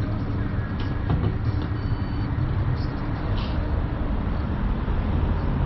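Car engine running steadily at low revs, a low rumble.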